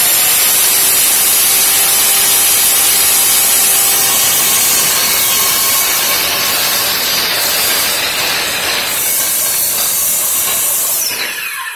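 Handheld circular saw running along a guide track, its blade cutting through the track's plastic anti-chip edge in one continuous pass. Near the end the saw is switched off and its whine falls away as the blade spins down.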